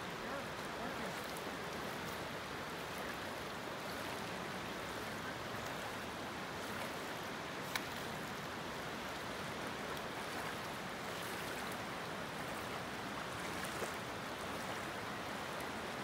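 River current running over a shallow, rippling stretch, a steady, even rushing noise, with one short click about eight seconds in.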